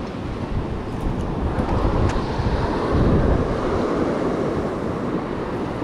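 Wind buffeting the microphone over the wash of ocean surf, swelling louder about halfway through.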